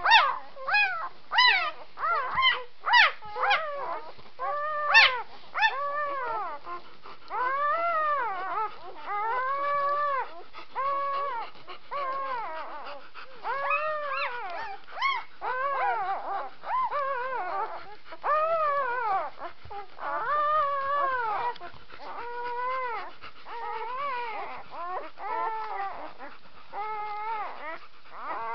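Three-day-old puppies squealing and whining while they nurse and jostle for a place at the teat: short sharp squeaks for the first few seconds, then a steady run of drawn-out whines that rise and fall in pitch, each under a second long.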